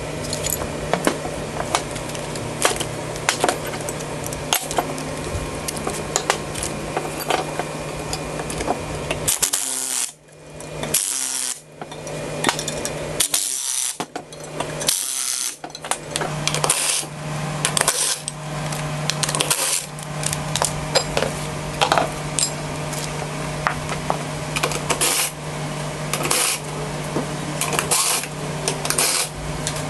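Metal clinking and clatter of bolts, nuts and hand tools on steel spindle brackets, with a run of short, loud bursts from a cordless Ridgid impact driver tightening the spindle bolts about a third of the way in. A steady low hum lies underneath.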